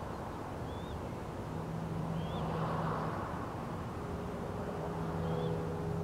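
Steady low rumble of road traffic, with a passing vehicle's engine hum coming through twice. Three faint, short bird chirps sound about two seconds apart over it.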